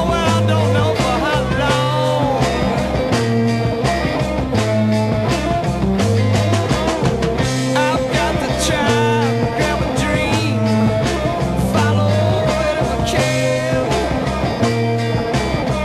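Instrumental passage of a late-1960s psychedelic rock recording: electric guitars with bending lead lines over bass and drums, with no vocals.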